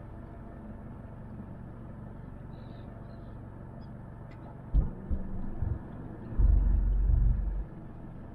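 Steady low rumble of a boat's engine running at low speed, with a thump about five seconds in and then loud low buffeting on the microphone for about a second near the end.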